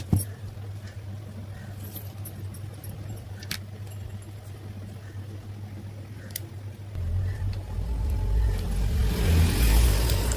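Philips SalonDry Compact hair dryer: a steady low hum with a sharp click at the start and a few light clicks. From about seven seconds in, a louder rush of blown air with low rumbling builds up and cuts off sharply at the very end.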